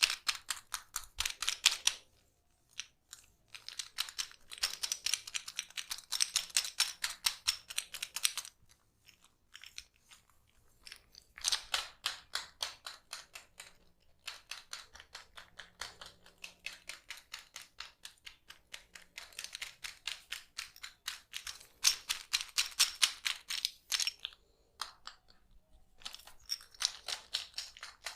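Hands tapping quickly and rhythmically on the neck and shoulders in a percussive massage: runs of quick, even strikes, several a second, broken by short pauses.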